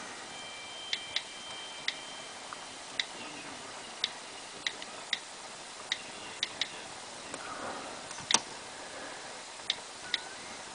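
Keyboard clicks from a third-generation iPad's on-screen keyboard: about a dozen short ticks at uneven intervals as keys are tapped, with one louder tap about two-thirds of the way through. A faint steady hiss lies underneath.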